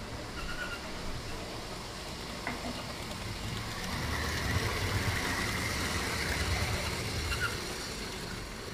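Model railway train passing close by on the track, its wheels and motor making a low rumble with a faint whine. It swells about three or four seconds in, is loudest for a couple of seconds, then fades as the train moves away.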